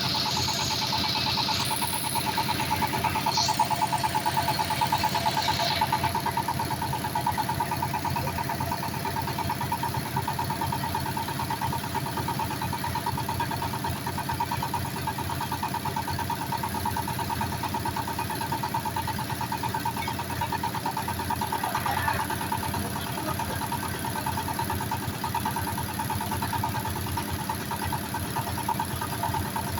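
Engine-driven foundation drilling machine running steadily at a constant pitch. A brief high-pitched sound rises over it in the first few seconds.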